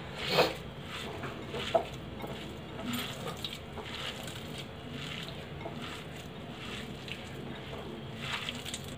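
Boiled Maggi noodles and chopped vegetables being mixed by hand in a glass bowl: soft, irregular squishing and rustling, with a couple of louder squelches in the first two seconds.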